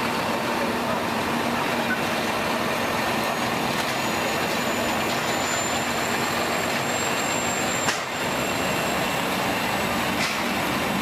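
Mack tractor-trailer's diesel engine running as the dump truck pulls past close by, with a faint high whine over it. There is a single sharp knock about eight seconds in.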